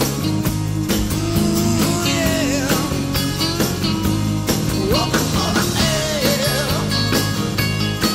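Rock music with a steady drum beat and a lead line that bends up and down in pitch.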